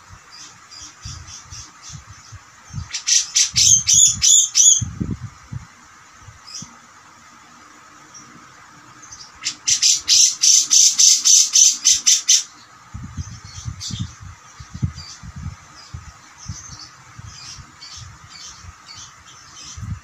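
Caged grey-cheeked bulbul (cucak jenggot) giving two loud bouts of harsh, fast-repeated notes, about four a second. One comes about three seconds in and lasts two seconds; the other comes about halfway and lasts three seconds. Softer chirps fall between them, with scattered low knocks.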